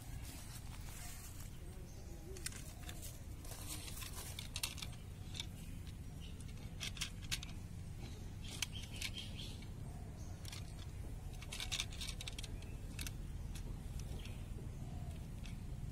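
Scattered light clicks and rustles as a small toy bus is picked up and handled among leaf litter, over a steady low rumble.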